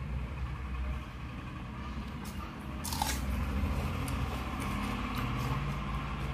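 Close-up chewing of a mouthful of food while a hand squeezes and mixes water-soaked rice (panta bhat) in a steel bowl, with wet squishing. A short sharp noise about three seconds in.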